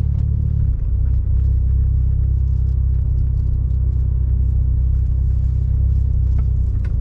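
Mitsubishi Evo IX's turbocharged 2.0-litre four-cylinder engine running at low speed with a steady low rumble, briefly easing off just under a second in.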